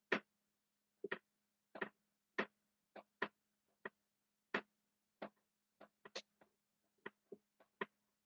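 Dry-erase marker tip clicking and scraping on a whiteboard as a word is written: a faint string of short, irregular clicks, a couple of them close together, over a thin steady hum.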